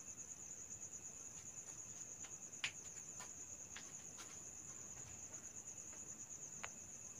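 Insect trilling steadily, a continuous high-pitched pulsing, with two faint clicks about two and a half seconds in and near the end.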